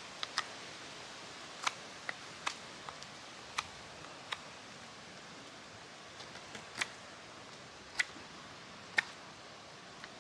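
Mora 510 carbon-steel knife cutting into a sycamore spoon blank: about a dozen short, sharp cuts at uneven intervals.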